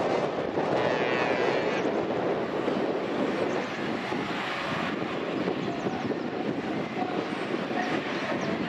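Steady drone of heavy truck diesel engines running, continuous throughout.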